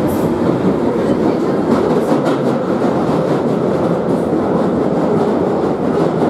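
Northern line 1995-stock tube train running through a tunnel, heard from inside the carriage: a loud, steady rumble with a few sharp clicks about two seconds in.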